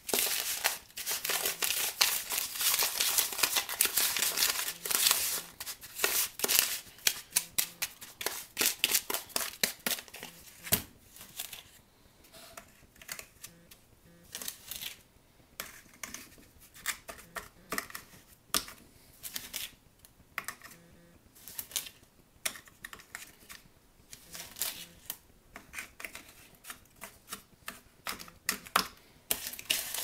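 Metal spoon stirring and scraping a damp borax and washing-soda mixture in a plastic tub, dense and steady for the first several seconds, then irregular clicks and taps as the spoon scoops the mixture and presses it into a plastic ice cube tray.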